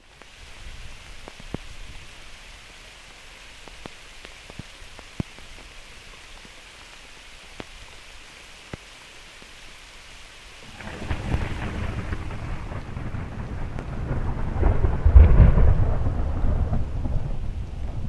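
Field recording of a thunderstorm: steady rain with occasional close drops ticking. About eleven seconds in, a long, deep roll of thunder builds, is loudest a few seconds later, and slowly fades.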